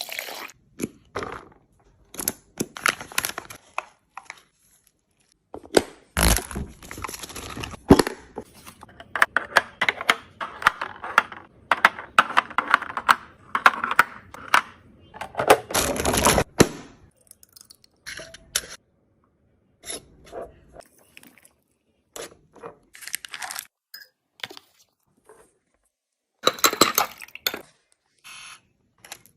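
Fridge restocking sounds: plastic packaging crinkling and tearing, with containers and jars clicking and knocking as they are set down and opened. There is a longer stretch of rustling in the middle.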